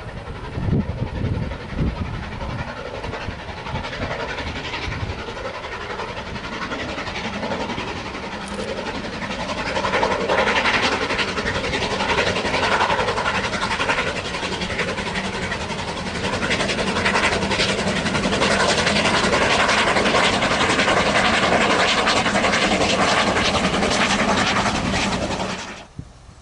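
Steam locomotive hauling a train of coaches, growing steadily louder as it draws near and passes, with the clatter of wheels over rail joints. The sound cuts off abruptly near the end.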